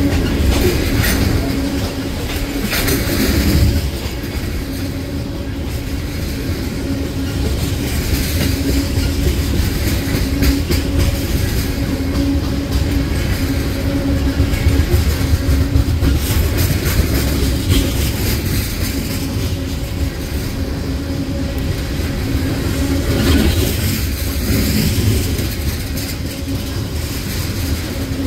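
Freight train of tank cars rolling past: a steady low rumble of wheels on rail with a steady low tone under it and scattered clicks and knocks as the wheels cross rail joints.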